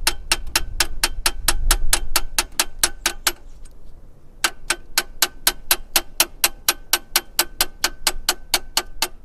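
Hammer lightly and rapidly tapping a steel pin punch to drive out the pin holding the shift arm to the transmission linkage: quick, even metal-on-metal taps, about five a second, with a faint ring. They pause for about a second near the middle, then carry on.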